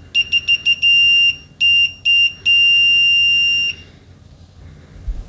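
Continuity beeper of a Mastercraft 052-0729-4 clamp meter sounding loud and high-pitched. It starts as a quick stutter of short beeps, then gives a few longer beeps, and ends with one steady beep held a little over a second.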